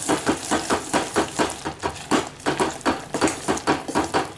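Steel spoon scraping and knocking against a stainless steel pot, stirring roasted peanuts and watermelon seeds into thick jaggery syrup: a quick, even run of scrapes, about four to five a second.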